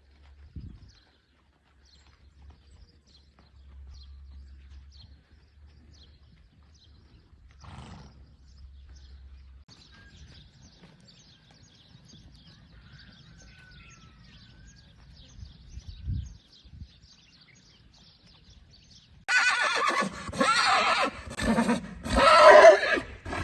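A horse neighing loudly, a run of whinnies beginning about nineteen seconds in. Before it there are only faint small clicks and a couple of soft knocks.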